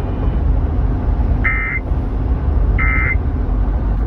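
Emergency Alert System end-of-message data bursts on a NOAA Weather Radio broadcast: short, buzzy two-tone digital bursts about a third of a second long, repeating about every second and a half, twice with a third starting at the very end. They signal the close of the warning message, and they sound over a steady low radio noise.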